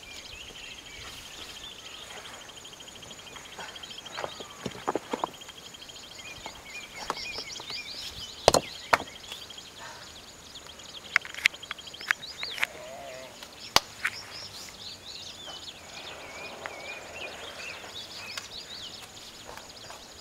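Outdoor ambience of birds chirping and a high, rapid trill that stops about twelve seconds in. Several sharp knocks and clicks are heard as the man shifts his footing and hands on the rocks around the trapped goat; the loudest knock comes about eight and a half seconds in.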